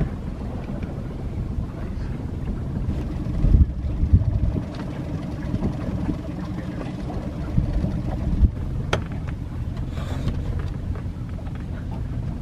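Pontoon boat under way on its quiet Mercury outboard motor at slow cruising speed, with wind buffeting the microphone. A steady low hum runs through the middle, and there are a few gusty thumps about four seconds in.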